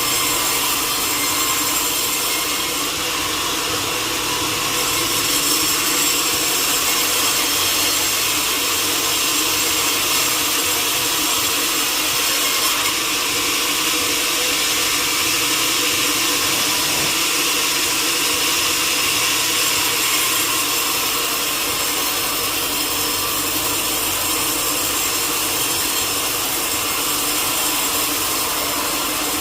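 Sawmill saw cutting through a teak log: a steady, unbroken cutting noise over a constant machine hum.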